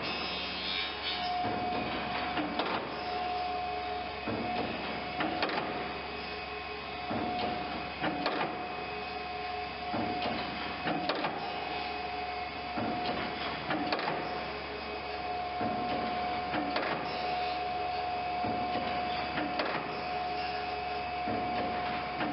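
Band saw double side grinding machine running: a steady whine over a mechanical hum, with a sharp clack recurring about every one and a half seconds as the blade is advanced tooth by tooth for side-grinding.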